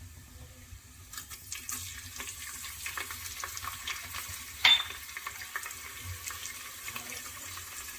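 Kitchen sounds: a steady watery hiss with small clicks and clinks, and one loud metal clang of a pot or utensil about halfway through.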